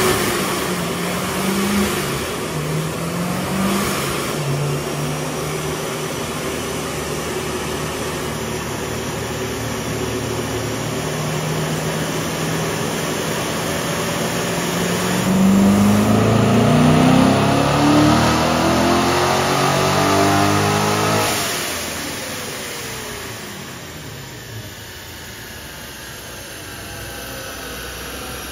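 Supercharged 2014 Corvette Stingray's 6.2-litre LT1 V8 running on a chassis dyno. A few short throttle blips give way to steady running, then about fifteen seconds in a full-throttle pull sends the revs climbing for about six seconds, the loudest part. The throttle is lifted and the engine winds down.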